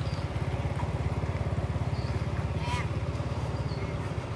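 Diesel dump truck engine idling, a steady low rumble with a fast even throb.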